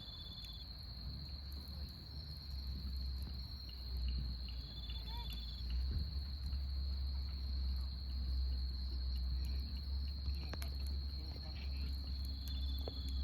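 Insects trilling: one high, unbroken note throughout, with a second, shorter pulsed trill coming in now and then. A low steady rumble sits underneath from about a second in, and a few sharp snaps come near the end.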